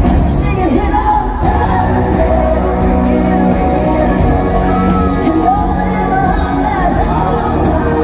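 Live band music played loud through a concert PA in a large arena, with singing over a steady bass line and the crowd audible underneath, picked up on a phone in the audience.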